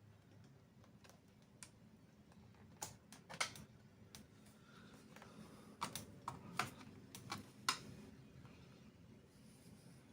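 Faint, scattered sharp clicks and light taps from small tools on the laptop's plastic bottom case as its screws are taken out, about a dozen in all, most of them in the middle of the stretch.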